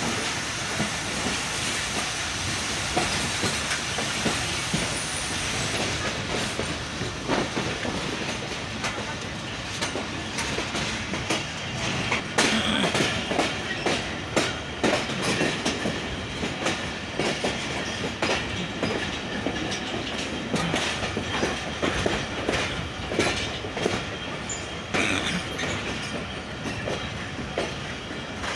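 Passenger train wheels running on the rails, heard from the open door of a moving coach: a steady rumble at first, then from about six seconds in a run of irregular clacks and knocks as the wheels cross the points and crossings of a station yard.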